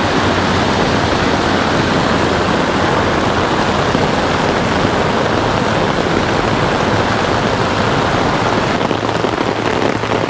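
Floodwater rushing down a washed-out ravine: a loud, steady rush of water with no let-up.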